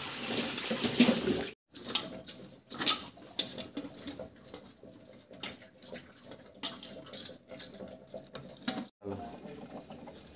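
Tap water running onto spinach leaves in a steel colander, stopping about a second and a half in. Then come scattered soft rustles and light clicks as wet spinach is handled and packed into an aluminium pressure cooker.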